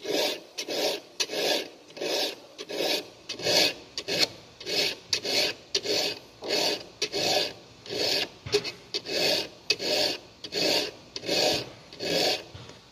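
Hand file rasping across a semi-chisel chainsaw chain's cutter in steady back-and-forth strokes, a little under two a second, stopping near the end. The cutter is being filed back down to the proper depth after being cut too deep into the gullet.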